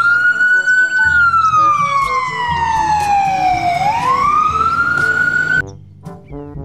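Ambulance siren on a slow wail: the pitch rises, holds, slides slowly down over a few seconds and climbs again, then cuts off suddenly near the end. Light background music runs underneath.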